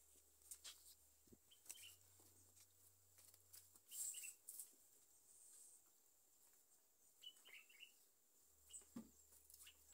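Near silence, with a few faint bird chirps and scattered soft scrapes and knocks as cow dung is gathered by hand into a plastic bucket.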